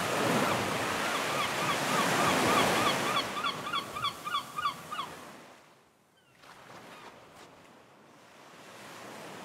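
Ocean surf washing with a bird calling in quick repeated short notes, about three a second, from about a second in; both fade out about five seconds in, leaving a quiet background.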